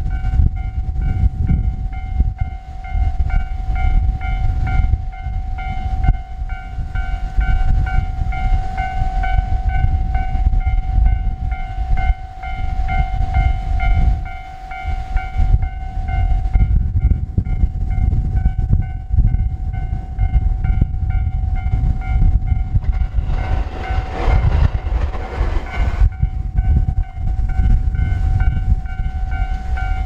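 Railway level crossing alarm ringing its steady repeating electronic bell, with strong wind buffeting the microphone in a heavy low rumble. A brief rush of broader noise rises and falls about three quarters of the way through.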